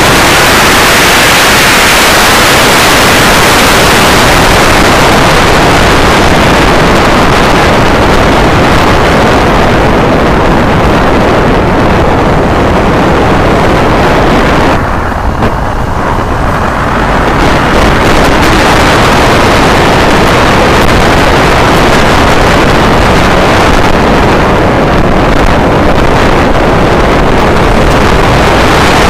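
Wind rush buffeting a camera mounted low on a riding Honda Magna VF750C motorcycle, with its V4 engine running under it at speed. Loud and distorted throughout, easing briefly about halfway through.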